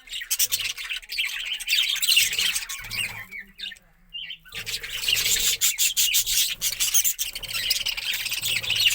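A flock of budgerigars chattering and squawking, a dense, rapid twitter of many birds at once with a short lull a few seconds in.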